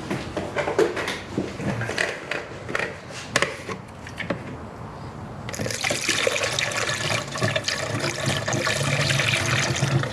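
A few clicks and knocks of handling, then about halfway through a steady pour of antifreeze from a jug into the coolant reservoir, topping it up.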